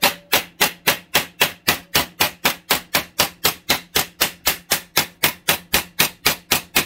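Rapid, even hammer blows of a steel hammer on a MIG-welded sheet steel piece resting on a bench vise, about five strikes a second: the MIG weld is being planished.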